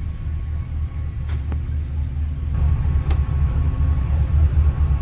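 Steady low rumble of a night ferry's engines, heard from the bunks of the below-deck passenger hall.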